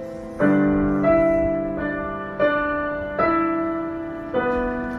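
Piano playing slow chords, a new chord struck roughly every second, each left to ring and fade.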